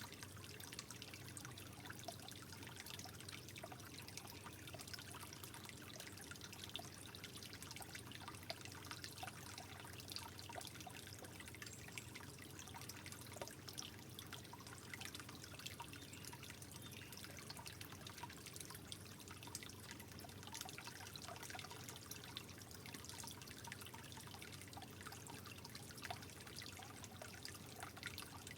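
Water trickling softly and steadily, with many small drips and splashes.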